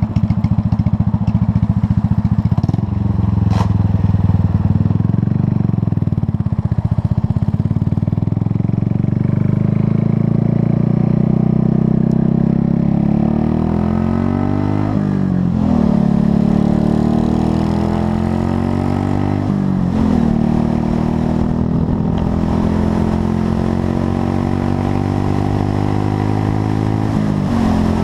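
Buell Blast motorcycle's single-cylinder engine accelerating up through the gears. Its pitch climbs and drops back sharply at three upshifts, around the middle, a few seconds later, and near the end. A single sharp click comes a few seconds in.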